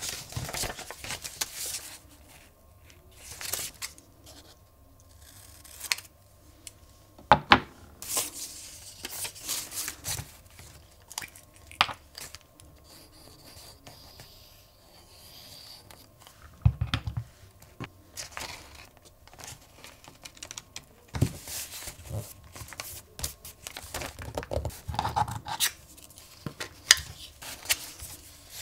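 Paper handled close up: rustling, crinkling and tearing, with scattered sharp taps and clicks as craft tools and a glue bottle are picked up and set down.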